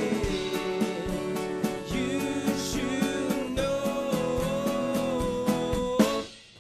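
Live band playing a country-style song with guitar and a held vocal melody. About six seconds in, the band hits an accent together and stops for a brief moment before the music picks up again.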